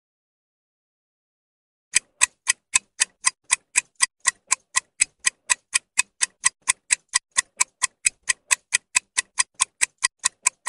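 A quiz countdown timer's clock-tick sound effect starts about two seconds in and ticks evenly, about four times a second.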